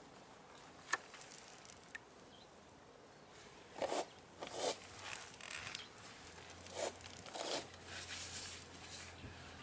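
Hand-unscrewing a scooter's engine oil drain plug over a plastic drain pan. There is a click about a second in, then several short rustling, splashing bursts as the plug comes free and used engine oil runs into the pan.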